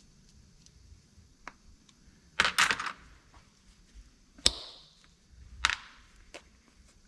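A few sharp metallic clicks and clacks from a hand tool and small screws being handled on a workbench. A loud cluster comes about a third of the way in, and a single sharp click with a short ring follows about halfway through.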